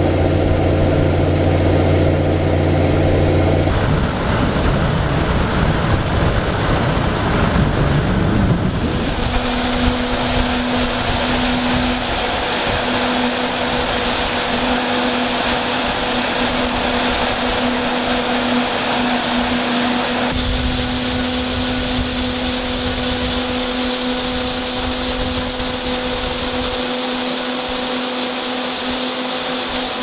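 Farm machinery running steadily: a low engine drone at first, then from about nine seconds a steady whine with a constant tone from a corn dryer's fan, which an Allis-Chalmers D-15 tractor drives.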